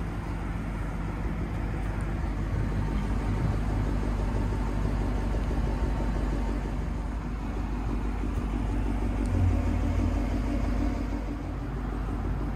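Lexus LC500's V8 idling steadily, a low hum, with a brief swell about nine seconds in.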